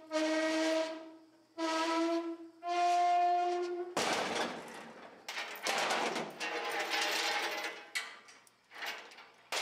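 Heavy steel rear blade shifted on an aluminium trailer deck: three drawn-out metal squeals, each under a second with a steady pitch, the last a little higher, then a few seconds of rough grinding and scraping of metal on metal.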